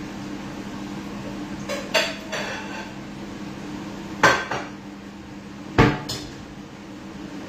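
Metal pots, a steel bowl and utensils clanking and clattering on a stovetop, in three sharp bursts about two, four and six seconds in. A steady low hum runs underneath.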